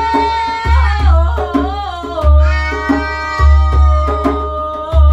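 Djembe played by hand in a steady rhythm of deep bass strokes and sharp slaps, under a sung vocal line of long held notes that slide down about a second in.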